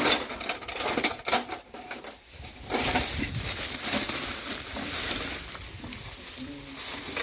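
Hard plastic toy train cars clacking and knocking together as they are handled, then a plastic shopping bag rustling and crinkling steadily as hands rummage through it from about three seconds in.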